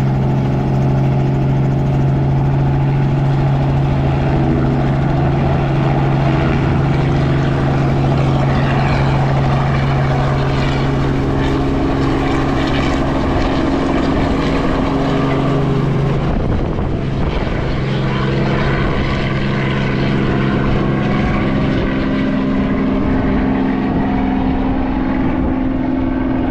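A motor running steadily at an even pitch, loud and continuous, with a brief lull about sixteen seconds in before it settles back to the same steady drone.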